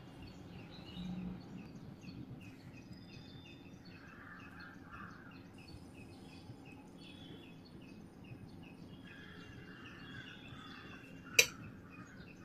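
Faint background with small birds chirping outside. One sharp click comes near the end, as the room light goes off and leaves the room dark.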